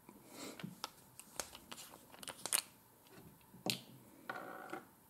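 Small clicks, taps and rustles of hands handling a UV resin tube and tools at a fly-tying vise, with a short squeaky scrape a little after four seconds in.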